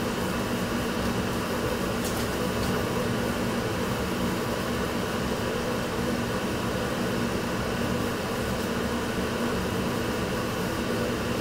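Steady hum of a ventilation fan, an even whirring noise with a low droning tone that does not change.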